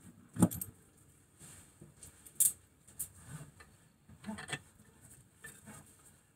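A few separate light metal clicks and knocks as a handbrake bracket and brake caliper are handled and fitted together on a brake disc, the sharpest about two and a half seconds in.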